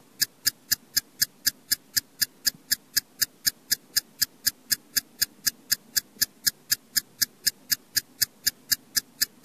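Stopwatch ticking sound effect: sharp, even ticks, about four a second.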